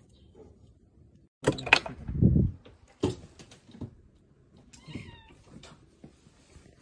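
A loud, rough noisy burst about a second and a half in, then a few sharp clicks, and a short cat meow about five seconds in.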